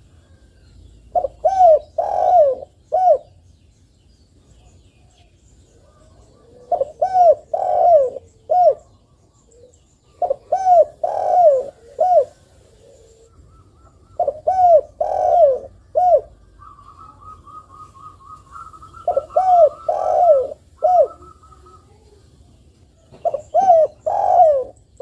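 Spotted dove (tekukur) singing its cooing song: phrases of four coos, the last set slightly apart, repeated six times about every four seconds.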